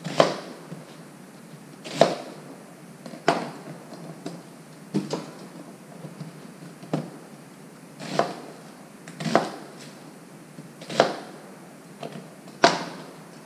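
Chef's knife chopping an onion on a plastic cutting board: about ten separate cuts, each ending in a sharp knock of the blade on the board, spaced one to two seconds apart.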